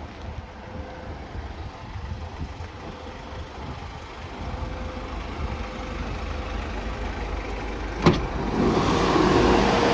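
Mercedes Sprinter 316 CDI's diesel engine idling with a steady low rumble. About eight seconds in there is a sharp click, and then a louder, even blowing noise with a steady hum starts, like a fan or blower switched on.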